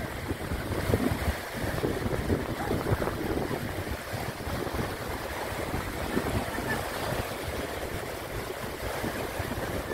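Small waves breaking and washing in at the water's edge, with gusting wind buffeting the microphone.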